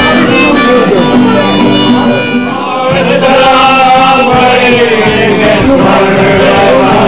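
Acoustic guitar strummed with men singing along in an informal sing-song; the music thins briefly about two and a half seconds in.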